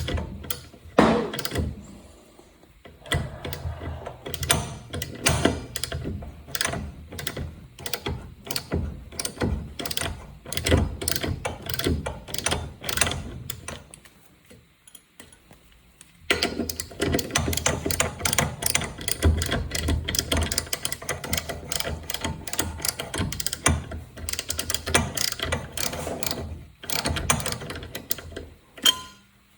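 Hand socket ratchet clicking in quick runs as bolts are backed out of an ATV brake rotor. It stops for a couple of seconds about halfway through, then carries on.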